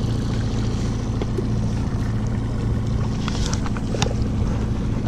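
Small Mercury outboard kicker motor running steadily while trolling, a constant low drone. A few light clicks about three and a half to four seconds in.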